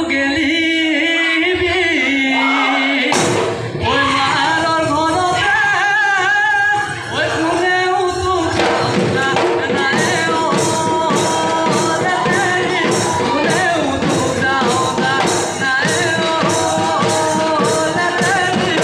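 Live Bihu music: a man singing over Assamese dhol drums, played through a stage PA. About halfway through the drumming comes to the fore as a steady beat of sharp strikes about twice a second.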